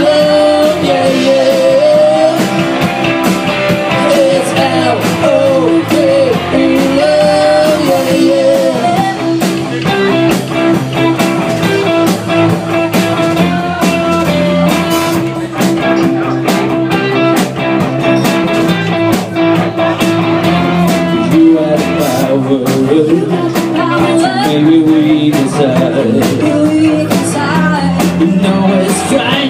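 Live rock band playing an instrumental passage: electric guitars, bass guitar and drums with busy cymbals, and a melodic lead line that bends up and down in the first ten seconds or so.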